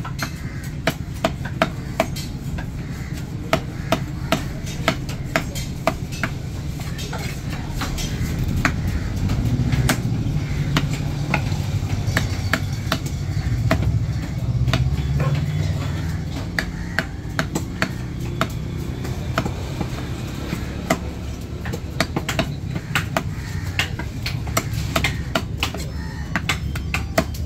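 Heavy cleaver chopping fish into chunks on a wooden log block: a string of irregular knocks as the blade strikes the wood, one or two a second and quicker in places, over a low background rumble.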